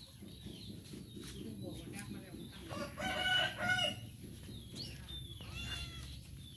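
Rooster crowing once, about three seconds in, the crow lasting a little over a second, followed by a fainter second call.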